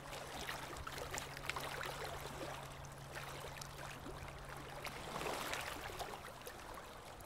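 Sea waves washing onto a beach, a fizzing, crackling wash that swells and recedes. A low steady tone from the music underneath fades out about five seconds in.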